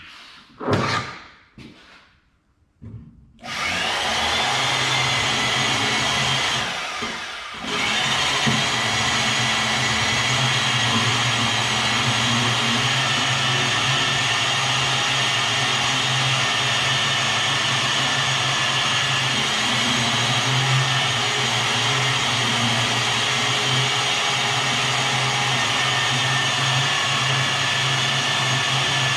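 A few light knocks, then a handheld electric power tool starts a few seconds in and runs steadily with a low hum. It dips briefly and resumes, working the metal of the forge base.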